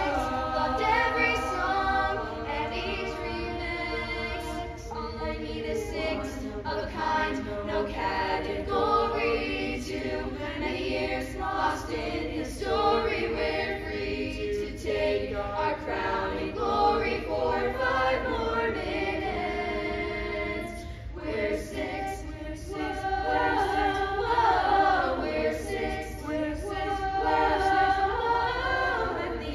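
A youth choir of mostly girls' voices singing a cappella in harmony, with no instruments.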